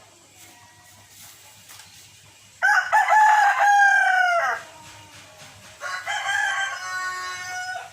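Rooster crowing: one loud crow lasting about two seconds starts a few seconds in, then a second, quieter crow follows near the end.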